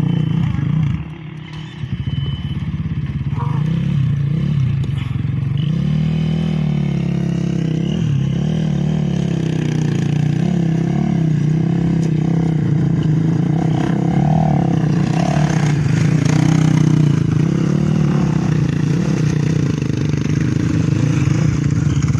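Rally motorcycle's single-cylinder engine revving hard and unevenly under load as the bike claws up a steep, rocky slope. It dips briefly about a second in, then keeps working with rising and falling revs, and loose stones clatter and scrape under the wheels.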